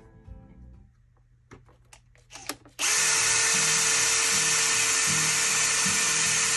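A small cordless electric screwdriver running steadily, spinning a screw at the bumper of a radio-controlled truck. It starts suddenly about three seconds in, after a few light clicks of the bit being set.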